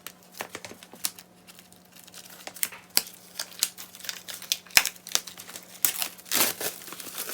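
Album packaging and photocards being handled: crinkling and rustling with scattered sharp clicks and taps, and a longer crinkle about six and a half seconds in.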